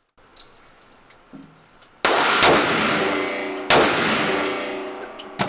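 Three pistol shots, two in quick succession about two seconds in and a third a little over a second later, each with a long echoing decay in an indoor shooting range, then a shorter, fainter crack near the end.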